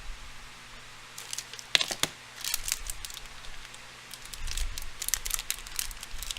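Crinkly packaging being handled: irregular rustling with a string of sharp crackles, starting about a second in.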